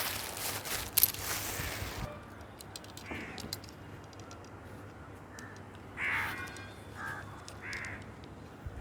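A crow cawing, four or five short calls spread over several seconds, the loudest about six seconds in. Before that, about two seconds of rustling with sharp clicks.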